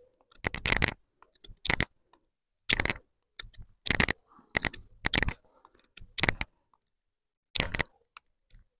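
J&V bushcraft knife blade cutting into a wooden stick in about a dozen short, separate strokes, with a pause of about a second near the end. The blade slips along the wood rather than biting in.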